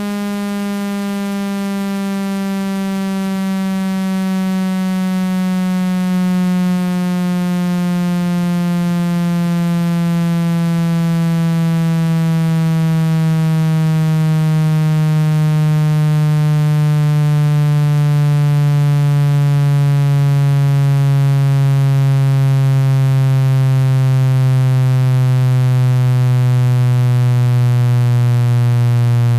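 Synthetic speaker-cleaning tone meant to vibrate water and dust out of a phone speaker: a loud, buzzy electronic drone, rich in overtones, sliding slowly and steadily down in pitch and growing slightly louder.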